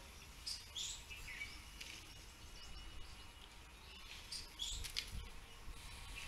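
Birds chirping in short high calls, a few about a second in and a cluster around four to five seconds in, over a low steady outdoor rumble.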